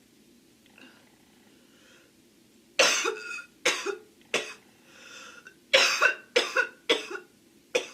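A girl coughing in fits: three coughs spaced about a second apart starting nearly three seconds in, a breath drawn in, then a quicker run of about five coughs.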